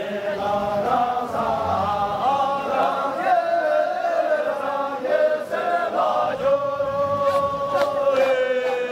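A group of men singing a Syabru dance song together in a chant-like unison. Near the end they hold one long note that drifts slightly down.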